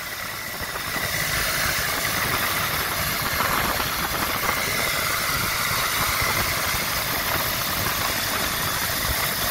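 Eicher 485's three-cylinder diesel engine running steadily under load as it tows a loaded trolley at road speed, heard from a vehicle alongside, mixed with steady rushing road and wind noise.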